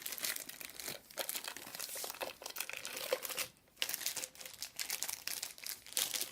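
Plastic packaging crinkling and rustling as vacuum cleaner attachments are unwrapped and handled, in irregular crackles with a brief lull about halfway through.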